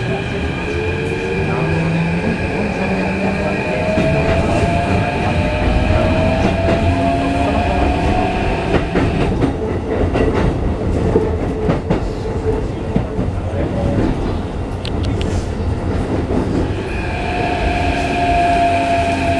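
Keikyu 1500 series train's Mitsubishi IGBT-VVVF inverter and traction motors whining under acceleration, heard inside the passenger car: a tone rising steadily in pitch over the first eight seconds, with steady higher tones alongside. About nine seconds in the whine cuts out as power is shut off, leaving the rumble and clatter of wheels on rail. Steady inverter tones return near the end.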